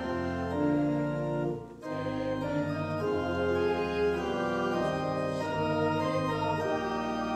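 Organ playing slow, sustained chords, with a short break about a second and a half in before the chords resume.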